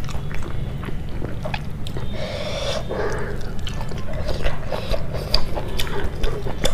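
Close-miked mouth sounds of eating by hand: chewing with wet smacks and small clicks, with fingers picking through curry and rice on a plate. A brief rustling patch comes about two seconds in, over a low steady hum.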